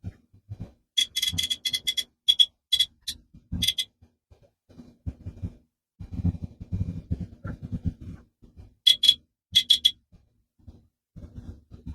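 Short electronic beeps from a DJI Osmo Action 5 Pro action camera, fired in quick chirping runs: one run of about three seconds early, a shorter run near the end. Between them come low knocks and rustles of the camera and packaging being handled.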